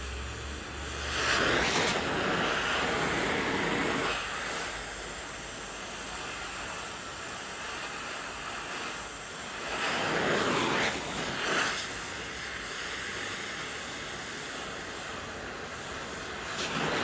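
Acetylene torch flame hissing steadily as it heats the handlebar's threaded section around a seized broken bolt, with three louder swells of rushing noise.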